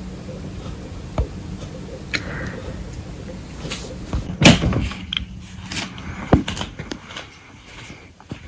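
A steady low hum with scattered knocks and clicks, the loudest a heavy clunk about four and a half seconds in.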